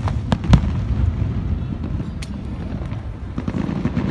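Aerial firework shells bursting: sharp bangs, two in quick succession within the first second and another about two seconds in, over a continuous low rumble of booms.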